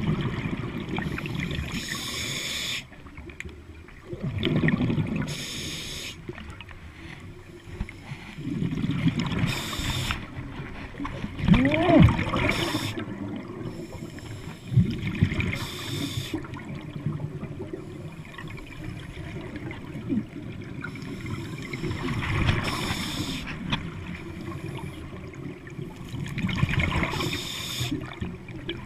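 Scuba diver breathing through a regulator underwater: a short hiss on each inhale, then a low rumble of exhaled bubbles, repeating every few seconds.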